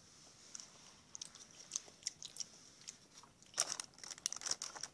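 Faint wet mouth clicks and smacks from sipping a strawberry smoothie through a straw and tasting it, scattered at first and coming thick and fast near the end.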